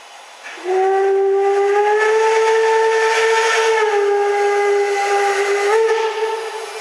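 Train horn sounded in one long blast of about six seconds: a loud, steady chord that starts suddenly, shifts slightly in pitch twice along the way, then dies away.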